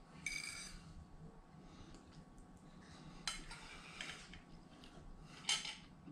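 A metal fork clinking and scraping against a dinner plate a few times as food is picked up, the first clink and one near the end the loudest.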